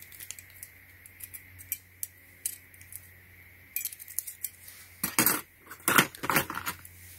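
Stainless steel worm-drive hose clamps clinking and jingling as they are handled and rummaged through in a plastic storage case. Scattered light clinks, with a run of louder ones near the end.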